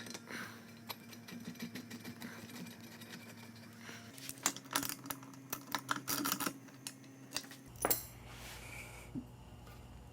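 Small metal hardware clicking and clinking as centrifuge legs and parts are handled and fitted, with a quicker run of taps in the middle and a few single knocks. A faint steady hum runs underneath.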